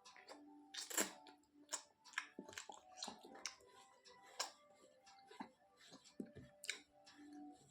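Quiet, close-up eating sounds: irregular soft clicks and smacks, many times over, with faint background music held under them.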